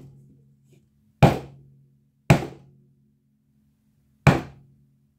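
Tack hammer striking wet acrylic paint on a small stretched canvas. Three sharp whacks, the first two about a second apart and the third after a longer pause, each fading quickly as the paint splatters outward.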